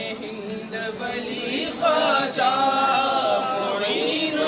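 A group of men chanting a devotional recitation together, several voices overlapping.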